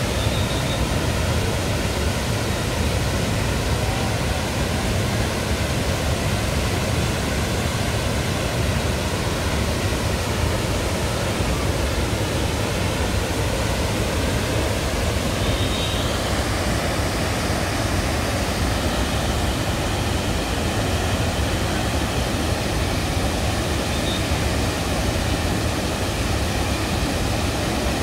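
Steady roar of a large waterfall, rushing water falling, with no change in level.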